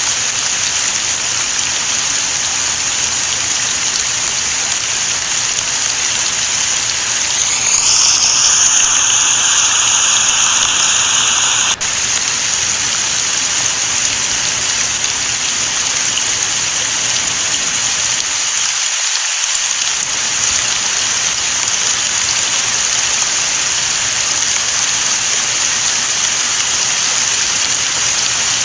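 Steady rain falling, mixed with the running water of a small stream, as an even hiss. About 8 seconds in, a louder hiss with a faint whistling tone rises in, then cuts off suddenly about 12 seconds in.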